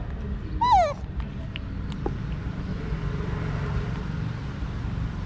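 A monkey gives one short, loud squeal about half a second in, sliding down in pitch, over a steady low hum.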